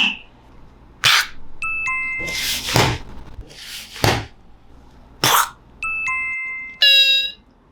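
A string of cartoon sound effects: four short rushing swishes, two short chime dings with clear ringing tones, and near the end a brief bright, buzzy pitched tone.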